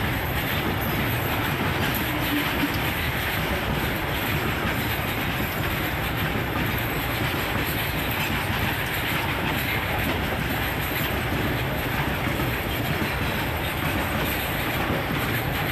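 A long freight train of covered goods wagons rolling past close by: a steady, unbroken noise of steel wheels running on the rails.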